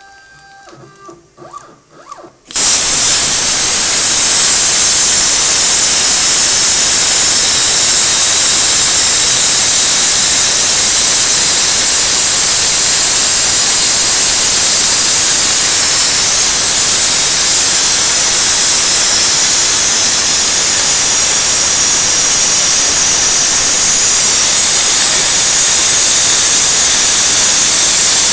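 CNC plasma torch cutting brass sheet: after a couple of seconds of faint tones, the arc and its gas jet start suddenly about two and a half seconds in and run as a loud, steady hiss.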